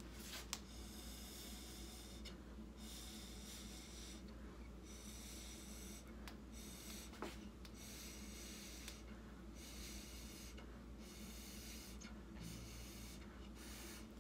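Breath blown through a drinking straw onto wet acrylic paint to push and spread it: soft hissing puffs, each about a second long, repeated about nine times, over a faint steady hum.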